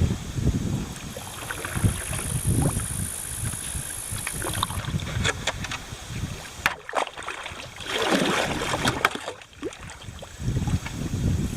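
Kayak being paddled on a river: paddle blades dipping and splashing, with water moving around the boat and wind rumbling on the microphone.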